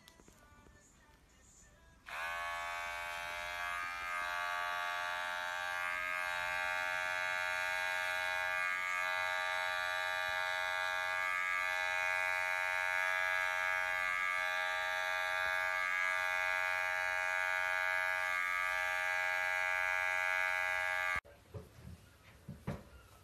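Electric pet hair clipper switched on about two seconds in. Its motor briefly rises to speed, then runs with a steady buzz as it trims a cat's fur, and cuts off suddenly near the end.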